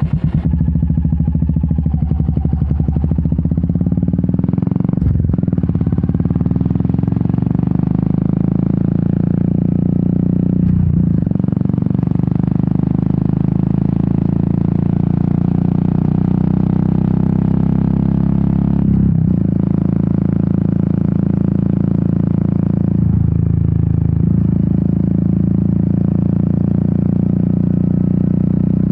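A Royal Enfield Meteor 350's single-cylinder engine and exhaust running at a steady, even beat. The note breaks briefly four times.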